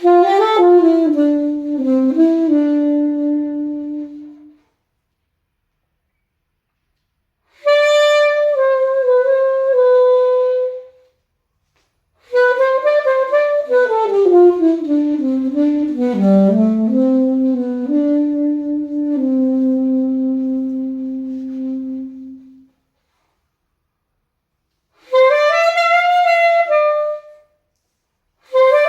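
Alto saxophone playing melodic phrases of a few seconds each, separated by silent breaths. The longest phrase has notes stepping downward and ends on a long held low note.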